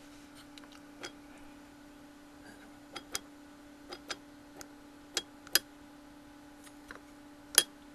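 Sharp, irregularly spaced ticks, about ten, some in close pairs, as a homemade MPG dial is turned one detent at a time. Its limit-switch arm clicks into the notches of a toothed wheel. A steady low hum runs underneath.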